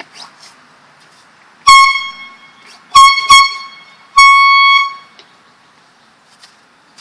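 Handheld air horn sounding four loud blasts: a short one, two quick ones in a row, then a longer one of nearly a second.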